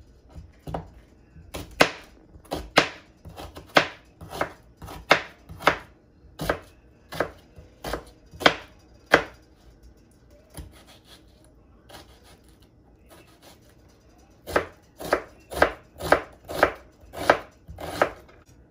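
Kitchen knife chopping a red onion on a plastic cutting board: sharp knocks of the blade striking the board, about one and a half a second. They grow faint about halfway through, then return in a quicker run near the end as the onion is diced.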